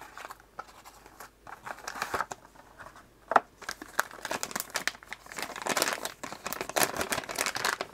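A cardboard box being opened, then a metallised anti-static bag crinkling and rustling as it is handled, with irregular crackles and one sharper click about three seconds in; the crinkling thickens in the second half.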